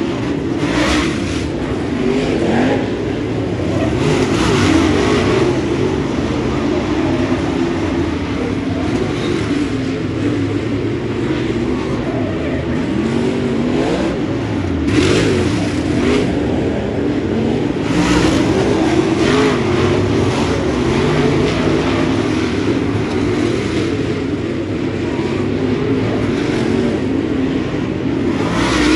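Dirt super late model race cars' V8 engines running together around the oval, louder each time cars come past.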